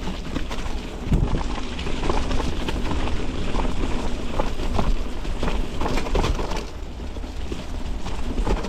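Mountain bike rolling along a rough, leaf-covered dirt trail: tyres crunching over the ground with frequent rattles and knocks from the bike, and wind rumbling on the camera microphone.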